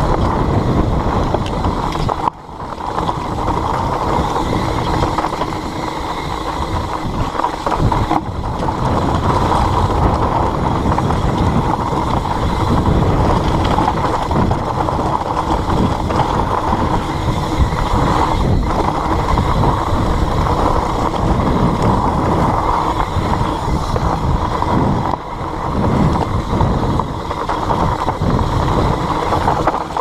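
Foes Mutz fat bike's tyres rumbling and rattling over loose rock and gravel on a fast descent, with wind rushing over the camera microphone. The noise is steady and loud, briefly dropping twice.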